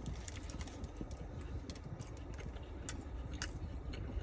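Chewing a mouthful of glazed strawberry-filled donut close to the microphone, with scattered small crisp clicks from the crunchy sugar glaze.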